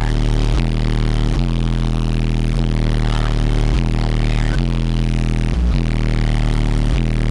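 Competition car audio subwoofer system playing a bass-heavy track at extreme volume, with sustained low bass notes that change every half second to a second or so, the recording crackling and distorted under the pressure. The SPL meter reads about 151.7 dB.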